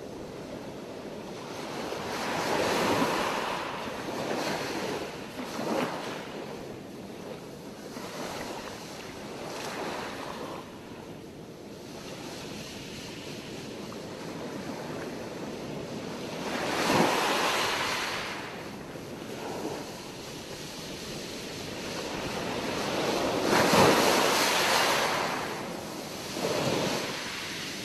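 Steady rush of North Sea surf mixed with wind on the microphone, swelling louder three times, the loudest a few seconds before the end.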